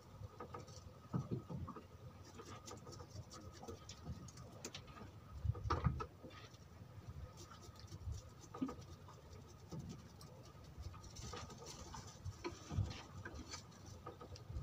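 Quiet ambience aboard a small wooden boat on the sea: irregular soft low thuds and patter, with scattered light clicks and a faint steady high tone underneath.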